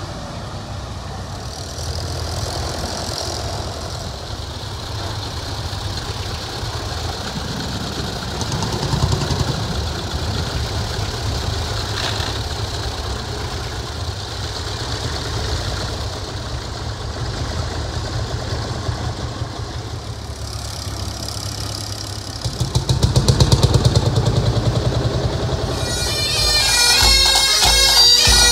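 Engines of vintage tractors and a vintage heavy lorry running past slowly in a parade, with a louder engine surge about 23 seconds in. Near the end a pipe band's bagpipes start playing.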